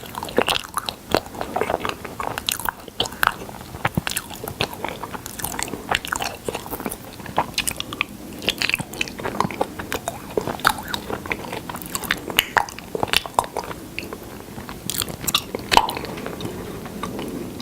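Close-miked chewing and biting of honey: many quick, irregular sticky clicks and crunchy crackles of mouth noises.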